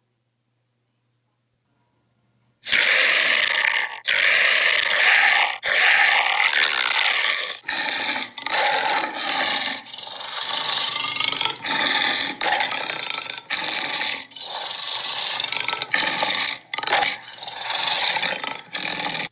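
Tiger snarling: a long run of loud, harsh snarls, each half a second to a second and a half long with brief gaps between them, starting about two and a half seconds in after silence.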